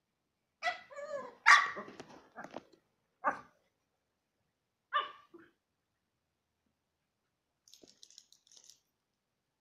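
Dogs barking in play: a quick burst of several barks in the first few seconds, another single bark a moment later, and one more about five seconds in.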